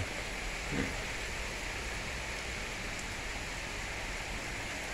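Steady rain falling, an even hiss throughout.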